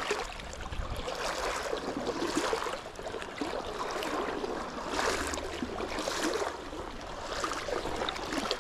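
Small river running, a steady rush of water that swells and eases every second or two.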